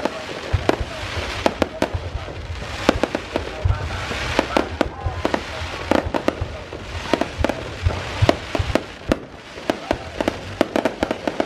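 Fireworks display: many sharp bangs and crackles in quick, irregular succession, several a second, over a continuous noisy wash.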